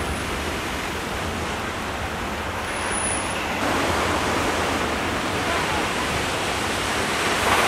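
Ocean surf breaking on rocks: a steady rush of wave noise that grows a little louder about halfway through.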